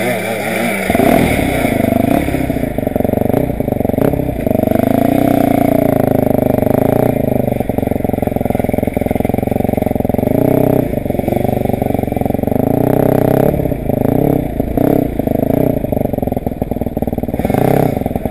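Dirt bike engine heard up close from its own handlebars, getting louder about a second in as the bike pulls away, then revving up and down as it rides.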